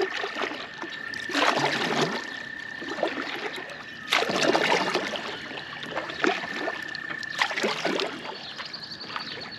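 Kayak paddle strokes: a double-bladed paddle dipping and pulling through the water, splashing and dripping, with three strong strokes about a second and a half, four seconds and seven and a half seconds in. A steady high tone sounds faintly underneath, breaking off briefly near the end.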